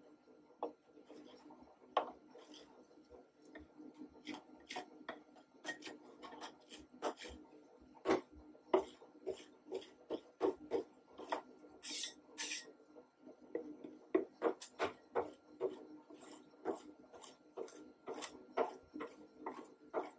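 Metal spatulas scraping and tapping over a frozen layer of guava ice cream base on a stainless steel cold plate, an irregular run of scratchy scrapes and taps. Two sharper, brighter scrapes come a little past halfway.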